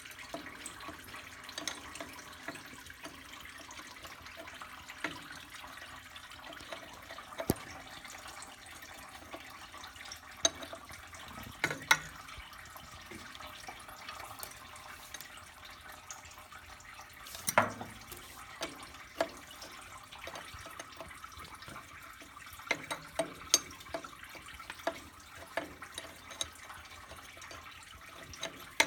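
A steady trickling hiss, like liquid running, under scattered sharp metallic clinks and knocks of hand tools on metal parts; the loudest knocks fall near the middle.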